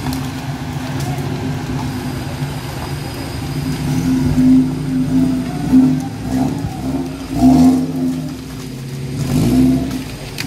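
Off-road 4x4's engine running under load in deep mud, revved hard several times in the second half, each rev rising and falling.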